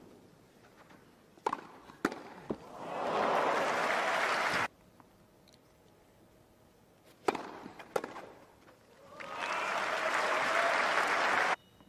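Tennis ball struck by rackets a few times, then crowd applause that swells, holds and cuts off abruptly. This happens twice, with quiet in between.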